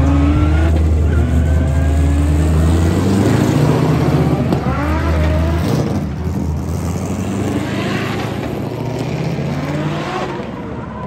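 Drift car's engine revving hard while sliding sideways, its pitch rising and falling with the throttle. A deep steady drone underneath stops about six seconds in.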